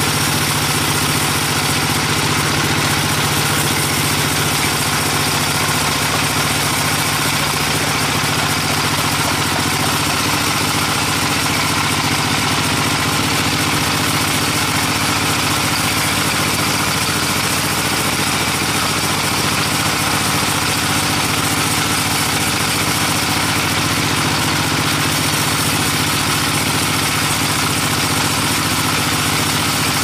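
Band sawmill running steadily, its blade cutting lengthwise through a teak log: a constant machine hum under a dense, even sawing noise.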